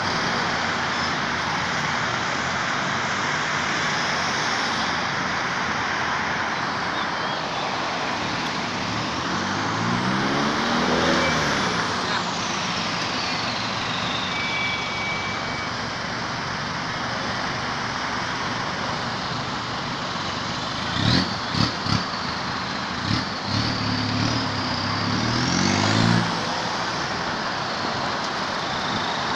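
Steady road traffic noise, with a motor vehicle passing about a third of the way in, its engine pitch rising and then falling, and another passing near the end. A few sharp knocks come about two-thirds of the way in.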